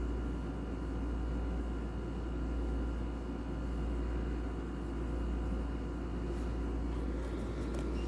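Steady low background hum with a faint hiss and a few thin, high steady whines.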